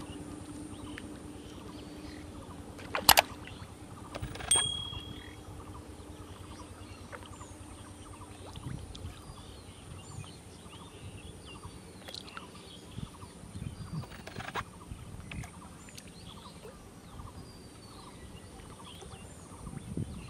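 Outdoor ambience at a pond: small birds chirping here and there over a steady low hum that fades out partway through. Two sharp knocks come about three and four and a half seconds in, the first the loudest sound here.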